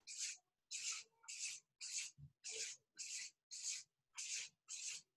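Marker pen drawing small circles on flip-chart paper, one short scratchy stroke about twice a second, faint.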